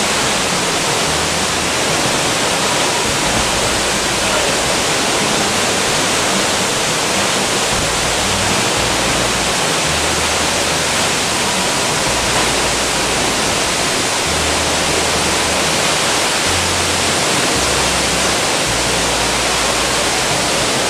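Gitgit waterfall, a tall plunging falls, making a loud, steady rushing noise of falling water, an even hiss that spreads from low to high pitches without a break.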